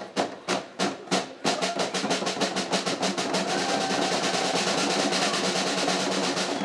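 A group of djembe hand drums played by hand, with a few separate beats and then, about a second and a half in, a fast continuous drum roll.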